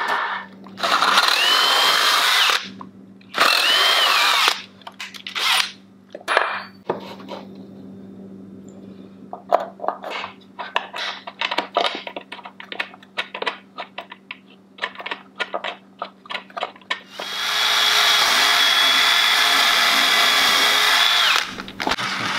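Cordless drill running into pine table framing: two short runs near the start, a scatter of sharp knocks and clicks from tools and wood being handled, then a steady run of about four seconds near the end.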